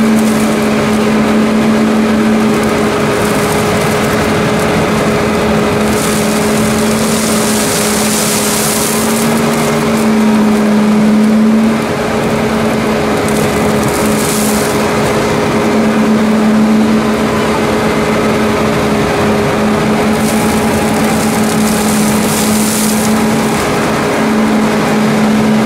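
Fendt 720 Vario tractor driving a Herder flail mower and suction combination as it mows a ditch bank: a steady mechanical drone with a held tone running through it. Surges of hiss rise and fall a few times.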